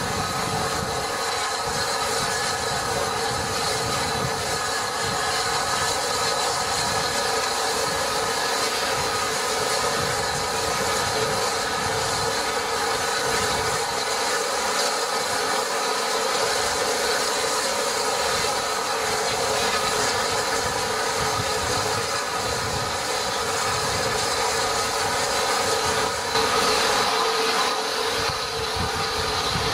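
Steam locomotive 34046 Braunton, a rebuilt Bulleid West Country class Pacific, standing and blowing off steam with a steady, loud hiss.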